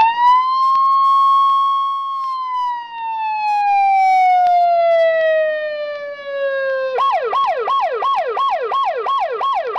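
A siren wailing: the pitch climbs at the start, holds, then slowly falls. About seven seconds in it switches to a fast yelp, warbling up and down about three times a second.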